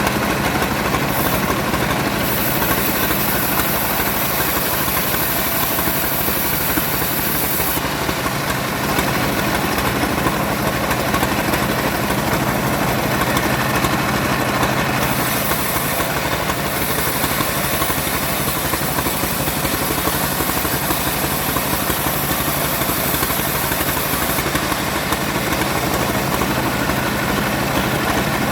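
Engine-driven wood saw running steadily under power, with a high cutting hiss that comes and goes several times.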